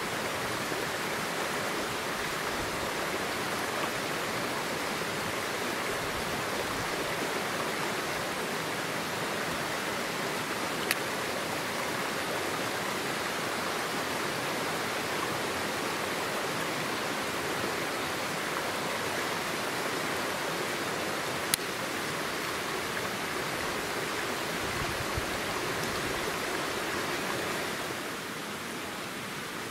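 A stream running with a steady rushing sound. There are two sharp clicks about ten seconds apart.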